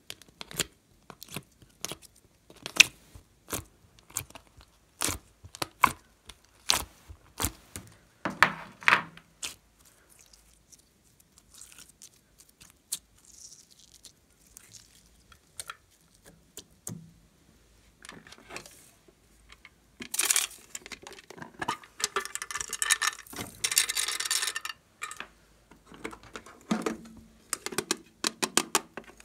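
Slime and clay being worked by hand: sharp clicks and taps of a plastic grid tray as clay is pushed out of its cells for the first ten seconds or so, then soft stretching, and a dense sticky crackle as slime is pulled and squished about twenty seconds in.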